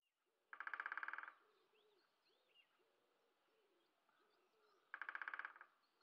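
Woodpecker drumming: two short, very rapid rolls of beak strikes on wood, about four seconds apart. Faint small-bird calls can be heard between them.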